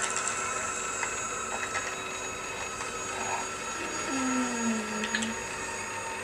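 A steady mechanical-sounding drone with several held tones. About four seconds in, a single low moan slowly falls in pitch for about a second.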